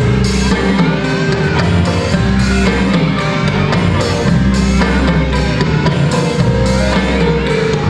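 Music with drums and a steady beat, over bass notes held in long repeating phrases.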